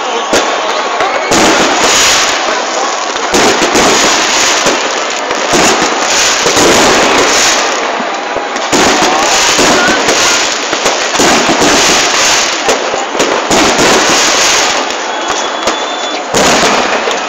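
Fireworks display: a loud, unbroken barrage of bangs and crackling from shells bursting overhead in rapid succession.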